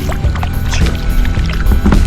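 Background music, with water and kayak noises underneath: scattered short knocks and splashes and a low rumble.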